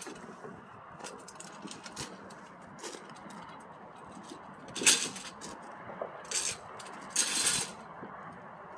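Metal clinks, rattles and scrapes from handling the kayak's metal dolly and frame parts on gravel: scattered light clicks, with a sharp clank about five seconds in and a longer scrape near the end.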